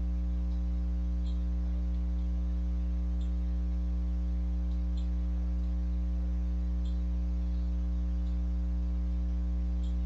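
Steady electrical mains hum in the recording, low and buzzy, with a few faint clicks about two seconds apart.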